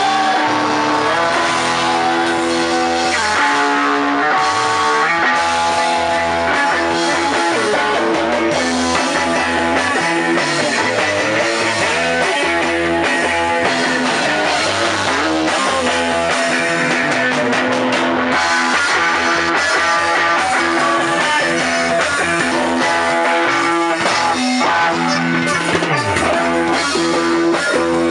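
Rock music played on guitar and bass guitar, loud and steady.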